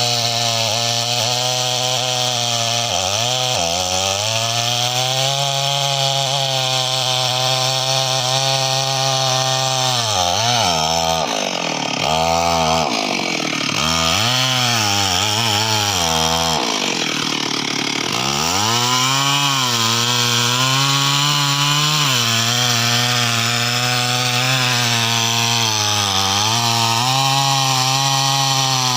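Stihl MS 382 two-stroke chainsaw running at high revs as it cuts into a teak trunk. Its engine pitch sags under load and recovers several times, with a run of deep dips and quick re-revs in the middle.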